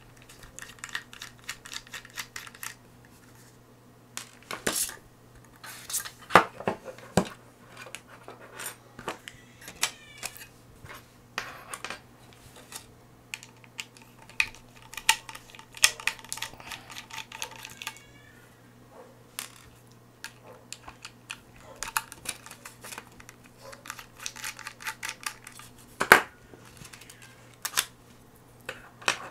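Small screwdriver working the screws of a laptop hard drive's metal mounting brackets: scattered light metallic clicks and ticks as the bit turns and the screws, bracket and drive are handled, with a few sharper clacks. A faint steady low hum sits underneath.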